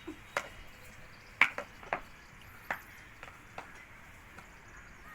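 A handful of short sharp clicks at uneven intervals, the loudest about one and a half seconds in, over quiet room tone.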